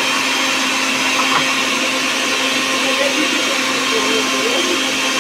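Oster countertop blender running steadily, blending a liquid mix of evaporated milk, condensed milk and lemon juice.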